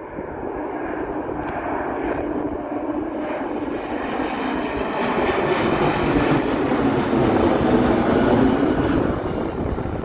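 Embraer 195 airliner on final approach, its twin GE CF34 turbofans passing low overhead. The jet noise builds steadily to its loudest about seven to eight seconds in, then begins to ease as the aircraft moves away.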